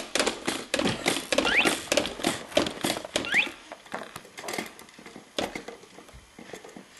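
Plastic toys on a baby jumper's tray clicking and rattling in quick succession, with a few short rising squeaks. The clatter thins out to occasional clicks about halfway through.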